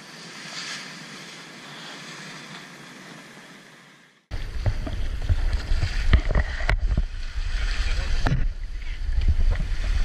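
Steady rush of wind and sea for about four seconds, then an abrupt change to loud water rushing and splashing along the hull of a sailing yacht under way, with heavy wind buffeting on the microphone.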